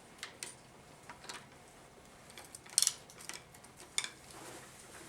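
Scattered light metallic clicks and clinks of hand tools and parts during disassembly of a 4L60E automatic transmission, with two louder clinks, one a little under three seconds in and one about four seconds in.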